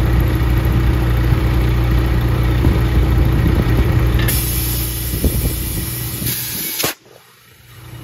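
A steady engine hum, and from about four seconds in a rush of compressed air as a truck tire is inflated through its valve stem to seat the bead. Both cut off suddenly about a second before the end.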